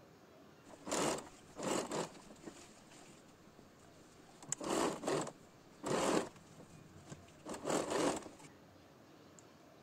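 Domestic electric sewing machine stitching in five short bursts, each under a second long, stopping and starting with pauses between.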